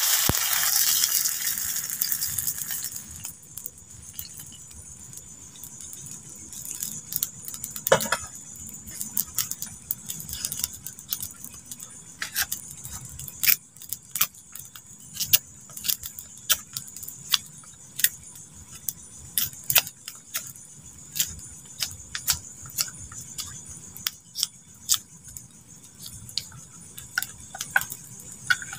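Frying in a small pan over a wood fire: a loud sizzle that dies away over the first three seconds, then many irregular sharp clicks as a metal utensil taps and scrapes the pan.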